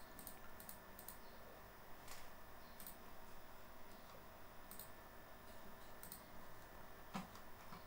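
Near silence: faint room hiss with about nine soft, scattered clicks, the strongest near the end.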